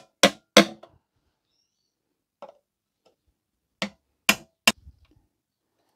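Sharp metal clicks of a small punch pressing small nails home to seat them in a clock dial's wooden case: three quick clicks, a faint one, then three more.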